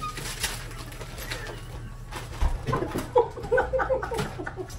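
Papers and envelopes rustling, then from about halfway a quick run of short, breathy, pitched laughs, about five a second, from teenagers laughing, one stifling it behind her hand.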